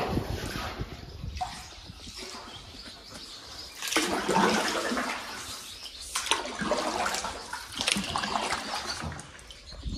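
Water splashing and sloshing around a canoe in a rock tunnel, in surges every couple of seconds, with swallows twittering faintly.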